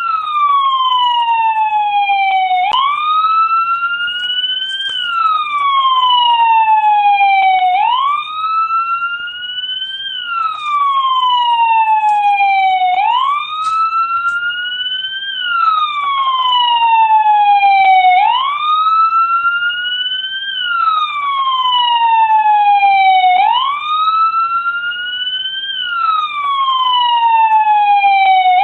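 American police car siren sounding a slow wail, its pitch climbing and then sliding down again about once every five seconds.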